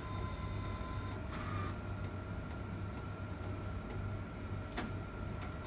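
Wide-format inkjet printer printing a nozzle check pattern: a steady mechanical whir with a low pulsing hum and a thin high tone, and a single sharp click about five seconds in.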